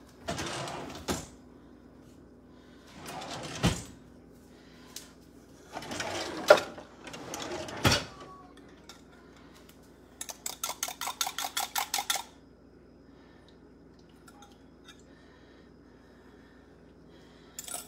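Kitchen handling sounds: pans and dishes moved and set down with a few sharp knocks. Then about two seconds of quick, even clinking, about six strokes a second, of a wire whisk beating eggs in a glass measuring cup.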